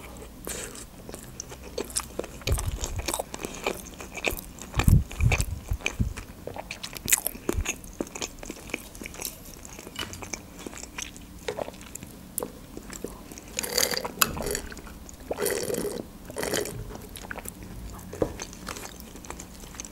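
Close-miked chewing of a sushi roll topped with chuka seaweed salad, with many short sharp mouth clicks and smacks.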